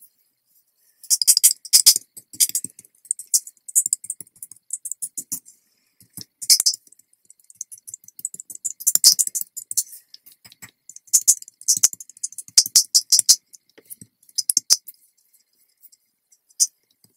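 Fingertips dabbing and rubbing black paint onto thin chipboard circle pieces on a craft sheet. The pieces tap and shift against the sheet in spurts of quick, light clicking and rattling.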